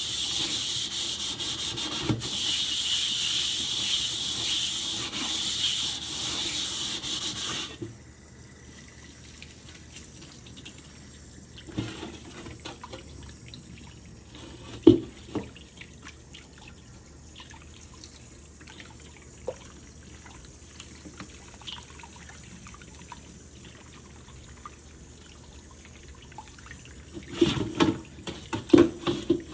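Rubber-gloved hand scrubbing the inside of a rusting steel wok with cleanser paste, a steady rasping that stops about eight seconds in. After that, water running faintly from the tap onto the wok while it is rinsed, with a few knocks of the wok against the stainless sink and a burst of clattering near the end.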